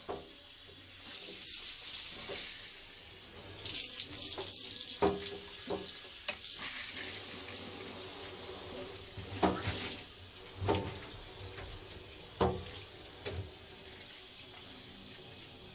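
Water running from a tap into a bathtub, a steady hiss, with a few brief sharp noises scattered through it.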